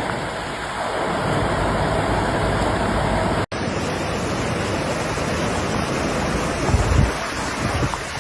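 Floodwater rushing, a steady dense noise of fast-flowing water, broken by a cut to a second clip of the same kind of noise about three and a half seconds in. A brief low rumble swells about seven seconds in.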